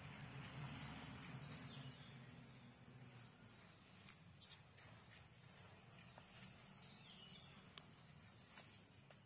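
Near silence: faint forest ambience with a steady high insect drone. Two faint falling bird whistles come through, about a second in and again near the end, along with a few soft clicks.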